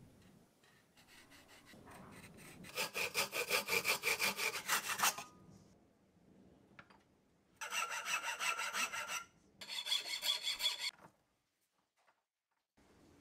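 Rapid back-and-forth strokes of a hand tool cutting and shaping the corner of a plywood block held in a vise. There is one long run of strokes, then two shorter runs with a slight metallic ring.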